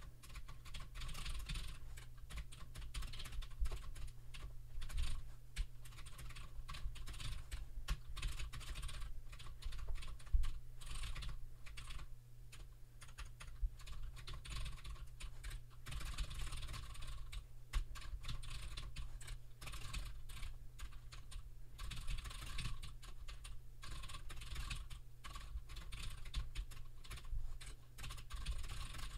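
Typing on a computer keyboard: a fast, uneven run of key clicks over a low steady hum.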